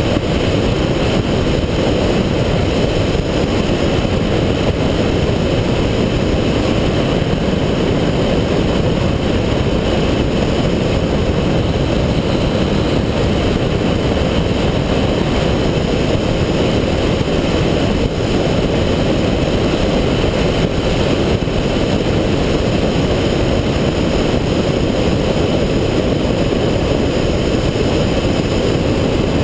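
Cessna 172's piston engine and propeller running steadily in flight, heard from a camera mounted outside under the wing: an even, unchanging drone.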